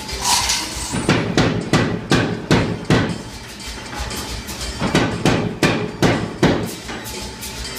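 Sahinler 60 kg power hammer striking hot steel bar in two runs of blows, about three to four a second, with a pause between them. A steady low motor hum runs underneath.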